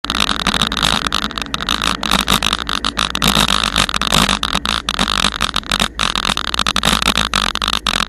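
Wind buffeting the microphone of a camera moving along a road: a loud, choppy rush of noise with frequent brief dropouts.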